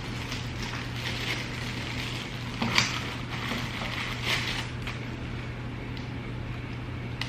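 Plastic ring-light stand parts and their packaging being handled: rustling, with a sharp click near the middle and a smaller one near the end, over a steady low hum.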